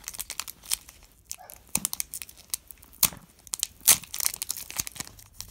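Foil wrapper of a Pokémon Sun & Moon Burning Shadows booster pack being torn open by hand: irregular crinkling and ripping. The sharpest crackle comes about four seconds in.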